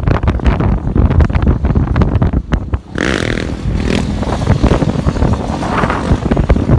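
Wind buffeting the phone microphone held out of a moving car's window, over engine noise; about three seconds in the buffeting eases and an engine note rises and falls for about a second.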